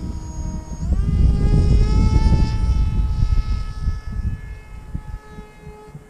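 Electric motor and propeller of a small foam RC flying wing whining, stepping up to a higher steady pitch about a second in and fading out near the end, over heavy wind buffeting the microphone.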